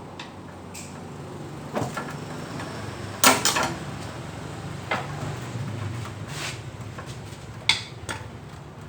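Metal clanks and knocks of tools and parts being handled while an Isuzu Panther transmission is taken apart: a few separate knocks, the loudest a ringing clatter about three seconds in, over a low steady hum.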